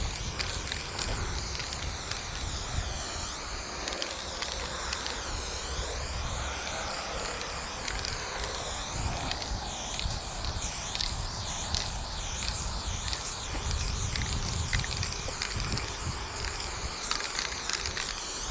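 Aerosol spray-paint can hissing almost without a break as paint is sprayed onto a cinder-block wall, the hiss shifting in tone as the can sweeps back and forth. Wind rumbles on the microphone underneath.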